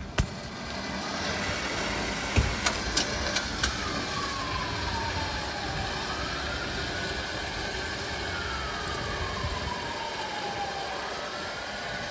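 Steady vehicle engine noise with a few sharp clicks in the first few seconds. A faint wailing tone slowly falls and rises twice over it.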